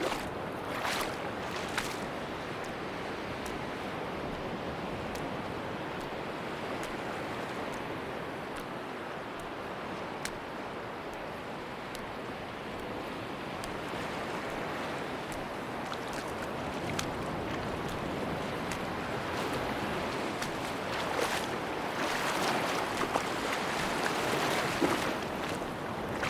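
Sea waves washing onto a beach: a steady rush of surf that swells louder in the last few seconds, with a few faint clicks.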